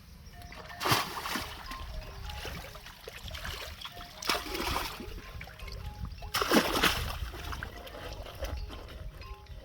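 Water splashing in a river: three heavy splashes, about a second in, about four seconds in and the loudest around six and a half seconds, with lighter splashing and trickling between them.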